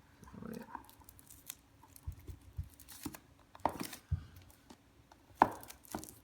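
Hands handling an iPad box and its packaging: scattered rustles and soft clicks, with two sharper knocks, one past the middle and one near the end.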